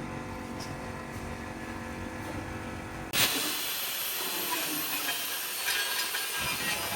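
A machine hums steadily, then about three seconds in a loud, hissing abrasive noise starts abruptly: a power tool working the metal of the alloy wheel.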